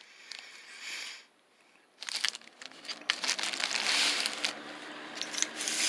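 Plastic packaging crinkling and rustling as it is handled, with many small clicks; a brief rustle, a short lull, then busier crinkling from about two seconds in.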